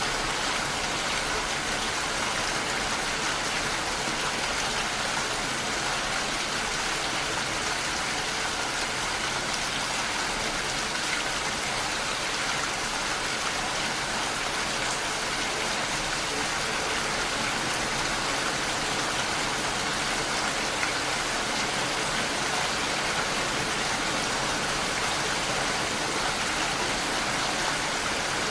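Steady rain falling, an even hiss of drops with no let-up or change.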